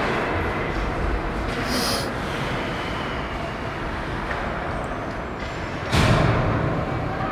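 Ice hockey rink sound during play: a steady rush of noise with skaters on the ice, a brief sharp hiss about two seconds in, and a sudden loud thud about six seconds in.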